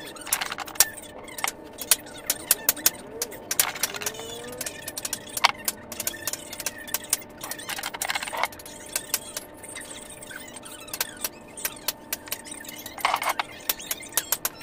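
Hand-tool handling: scattered sharp clicks and clinks with a few short scrapes, from a metal putty knife and a foil container of grey filler being worked while the filler is pressed into a groove in a wooden table top.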